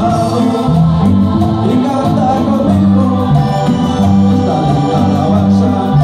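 Live Christian group music: sung vocals over electronic organ-style keyboard and bass.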